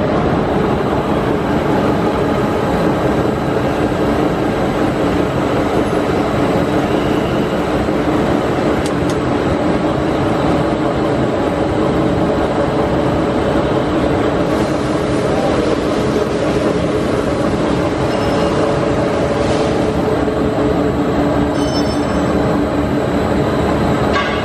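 Model 950 four-colour flexo printing machine for paper cup stock running at production speed: a loud, steady mechanical din with a hum of several steady tones, as the paper web feeds continuously through the print units.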